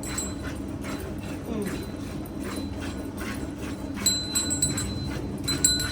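Cow being milked by hand, the jets of milk hitting the pail in an even rhythm of about two strokes a second. Short high chirps join in over the last two seconds.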